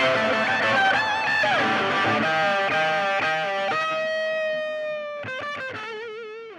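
Background music: a distorted electric guitar playing a lead line of long held notes with bends and vibrato, fading out near the end.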